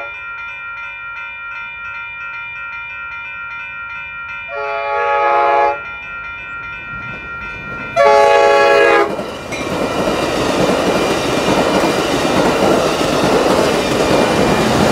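Electronic railroad crossing bell ringing while an approaching Amtrak Pacific Surfliner passenger train sounds its horn twice, about four and eight seconds in, the second blast the loudest. From about nine seconds in, the train passes through the crossing with a rushing rumble and rail clatter over the bell.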